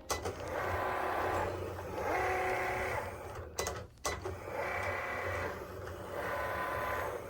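Background music of soft held chords that change about every second and a half, with two brief dropouts a little past halfway.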